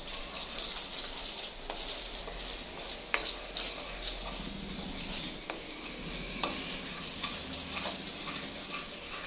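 Barbecue sauce (butter, honey and bottled sauces) simmering and sizzling in a pan on low heat while it is stirred, with a steady hiss. Now and then the utensil clicks sharply against the pan.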